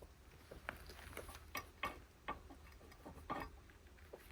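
A handful of light, irregular clicks and taps of metal parts and tools being handled during reassembly of a hydraulic cylinder.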